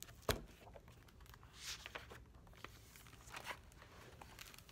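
Hardcover picture book being handled and opened: a sharp knock just after the start, then a few soft rustles of pages as it is turned open.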